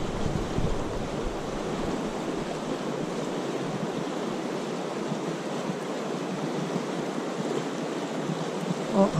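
Steady rush of a fast, shallow river current running over gravel and stones.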